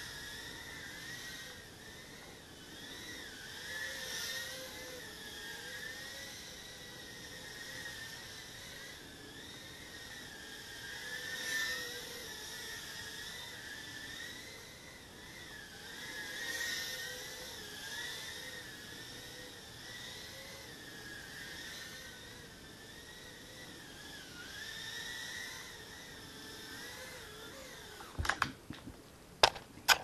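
Tiny whoop FPV quadcopter's motors and propellers whining, heard through the microphone on board the quad; the pitch wavers up and down as the throttle changes in flight. A few sharp knocks near the end as it comes down.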